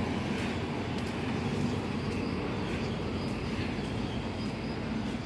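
Footsteps at walking pace, faint and regular about twice a second, over a steady low rumble of city background noise.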